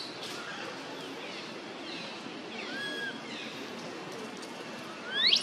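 Outdoor background hiss with a few faint high chirps and a short whistled note about halfway, then near the end a loud, quick upward-sweeping animal call.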